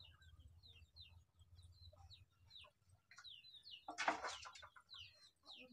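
Chickens in the yard: chicks giving many short, high, falling peeps, several a second, with one louder, harsher adult chicken call about four seconds in.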